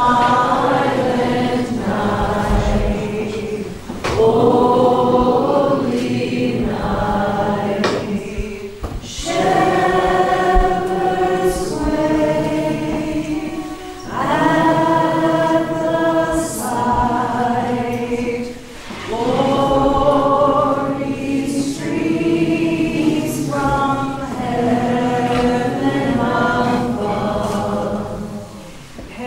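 A group of voices singing a Christmas carol together, in sung phrases with short breaks between them.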